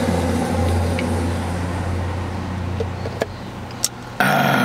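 Car engine idling, a steady low hum heard inside the cabin that fades somewhat after about three seconds, with a short loud rushing noise near the end.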